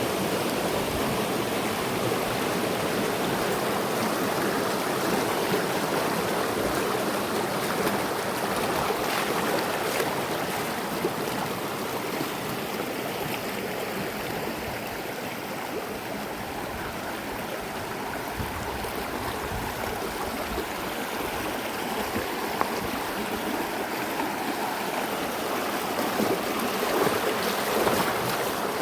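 Mountain river flowing over rocks, a steady rushing and gurgling of water over cascades and pools, easing slightly in the middle and swelling again near the end.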